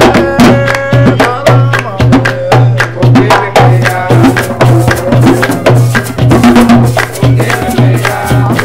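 Colombian Caribbean folk music played live: hand drums thump out a repeated deep note while a shaker keeps up a fast run of rattling strokes under a melody line.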